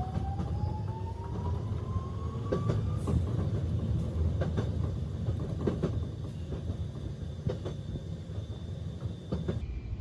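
Electric train heard from inside the carriage while running: a steady low rumble with irregular clicks of wheels over rail joints, and a thin motor whine rising in pitch over the first three seconds as the train accelerates.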